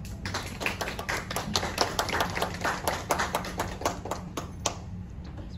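A small audience applauding: a handful of people clapping, the claps thinning out and stopping near the end.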